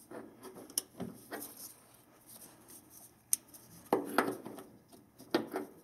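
Scattered metal clinks and knocks of a ratchet and a 27 mm oil-filter cap socket being handled on the oil filter housing cap, with a few sharp ticks among them.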